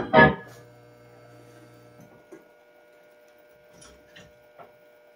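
The final notes of a record on a Wurlitzer 1015 jukebox stop abruptly in the first half-second. After that comes the jukebox's steady electrical hum, with a few faint clicks from the record-changer mechanism.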